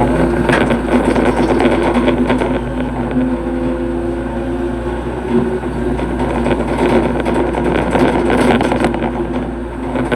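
Hitachi hydraulic excavator's diesel engine running steadily, with a dense crackling noise over the engine note.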